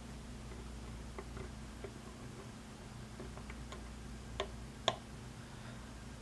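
Faint, sparse clicks and ticks of a lock pick working the pins inside a Schlage pin-tumbler lock cylinder under light tension. Two sharper clicks come about four and a half and five seconds in.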